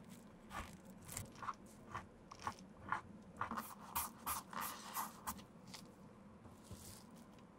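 Short scraping strokes of a metal spatula and gloved fingers working leather filler into the scuffed leather toe of a shoe, about two strokes a second, dying away about five and a half seconds in.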